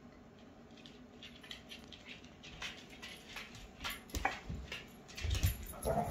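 Two beagles rough-playing: paws and claws scuffling and pattering on a wooden floor, growing busier, with heavier thumps in the second half as they tumble and jump onto a sofa. A brief vocal sound from one of the dogs near the end.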